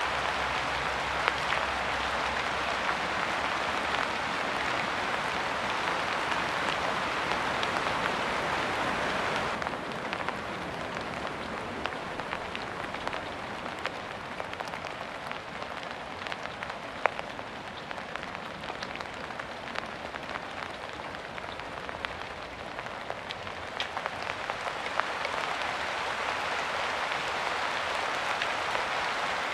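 Steady rain hissing, with scattered sharp ticks of single drops landing close by. It eases abruptly about a third of the way in and builds back up near the end.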